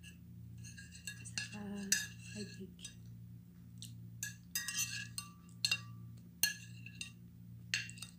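Metal spoon clinking and scraping against a ceramic plate while breaking up food, with a series of sharp, ringing clinks scattered through.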